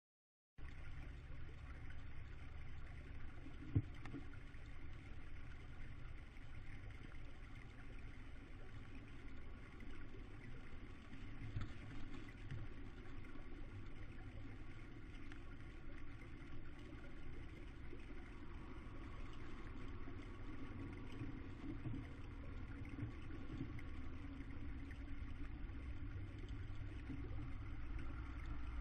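Steady low rumble and hum from inside the owl nest box, with a single sharp click about four seconds in.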